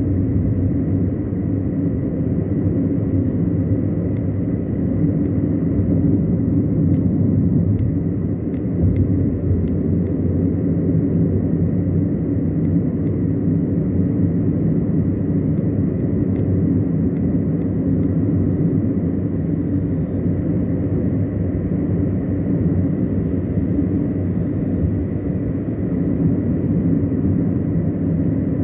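Steady low rumble of a car being driven: engine and tyre noise on the road, with a few faint clicks in the first half.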